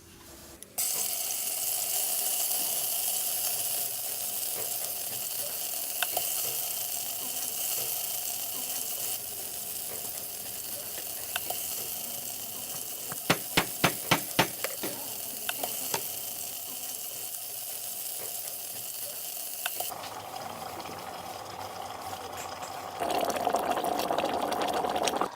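Food frying in hot oil, a steady sizzle, with a quick run of about seven sharp clicks in the middle. Near the end it gives way to a louder, lower rushing sound.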